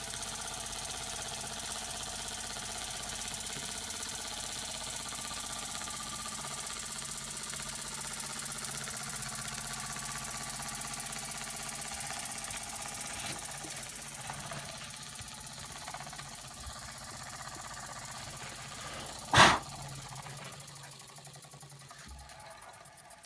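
Antique Buckman twin-cylinder toy steam engine running fast with a steady rapid chuffing rattle. It gradually quietens and slows over the last several seconds. A single sharp loud knock comes about nineteen seconds in.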